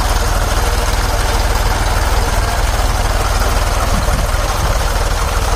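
Tractor diesel engine idling steadily, with a fast, even low beat.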